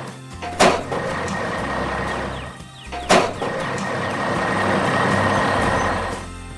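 Heavy truck engine running steadily, with two short, sharp sounds about two and a half seconds apart.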